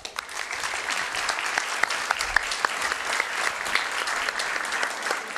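An audience applauding. The clapping breaks out at once and keeps up steadily.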